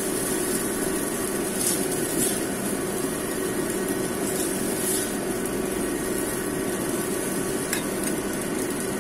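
A steady whirring roar with a low hum runs throughout, and a metal spatula scrapes and taps a few times against a nonstick wok as fried rice is scooped out of it.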